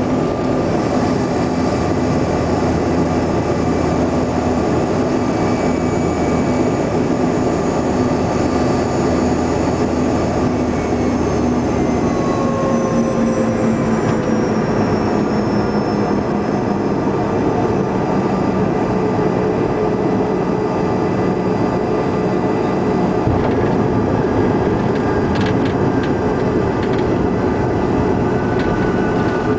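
Cabin noise of a CRJ-200 regional jet on final approach and landing: a steady rush of airflow with the drone of its rear-mounted General Electric CF34 turbofans. About halfway through, the deep rumble drops away and the engine tones fall in pitch as the engines spool down.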